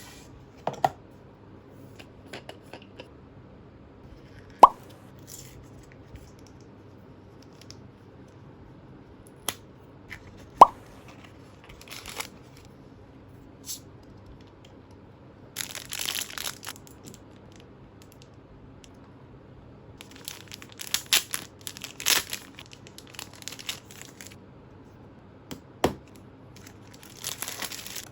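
Close handling sounds: rustling, crinkling and tearing, with two sharp clinks about six seconds apart.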